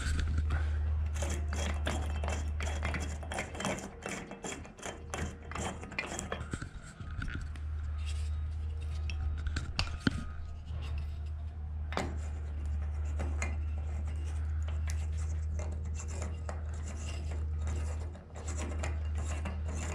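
Handling noises from changing an overhead light bulb: scattered clicks, scraping and rubbing of the bulb against the fixture, over a steady low hum that drops out briefly a few times.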